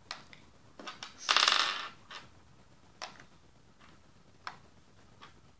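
Plastic chess pawns being set down one after another on a chess board: a series of short, sharp clicks, about one a second, with a louder half-second rustling noise about a second and a half in.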